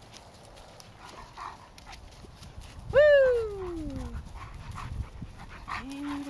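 A dog in rough play gives one loud, long whining yelp that jumps up and then slides down in pitch, about halfway through, followed near the end by a short, lower whine.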